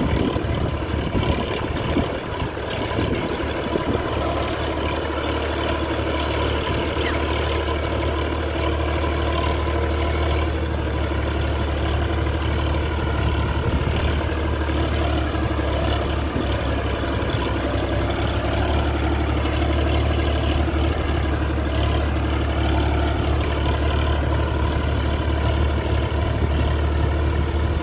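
Massey Ferguson 9000 tractor's diesel engine running steadily with an even low hum.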